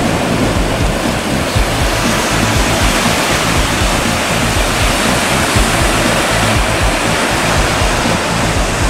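Steady rush of surf breaking on a sandy beach, with wind rumbling on the microphone.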